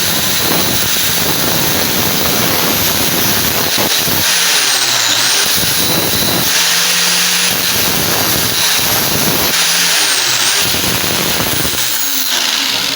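A power tool running continuously with a dense whirring, grinding noise. Its pitch dips and recovers twice, as if briefly loaded.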